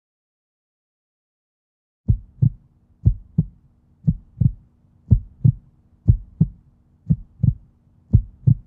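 Heartbeat sound effect: pairs of low thumps, about one pair a second, starting about two seconds in, over a faint steady hum.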